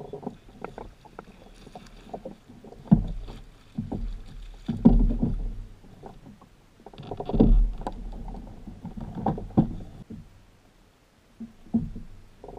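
Water splashing and knocks against a plastic Hobie kayak hull as a large rainbow trout is netted and lifted alongside. The sounds come in irregular bursts, with a quiet spell near the end.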